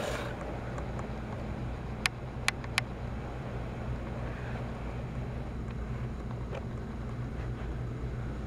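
Motorized Trackmaster toy train's small electric motor running with a steady low hum. Three sharp clicks come about two to three seconds in.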